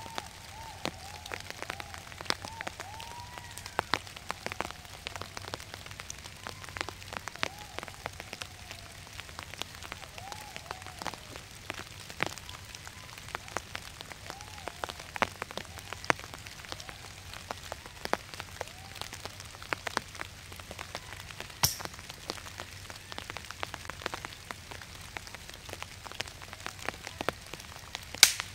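Rain pattering on a tarp shelter: many small drop clicks over a steady hiss. A soft chirping call repeats through the first part and now and then later. There are two sharp knocks, the louder one near the end as a stick is pushed into the campfire.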